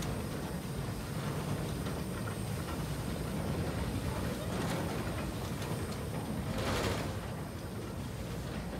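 Snowdon Mountain Railway rack steam locomotive No. 3 'Wyddfa' slowly setting off, with a steady low rumble and hiss of steam. Two louder puffs of exhaust come through, one about halfway and the loudest a little before the end.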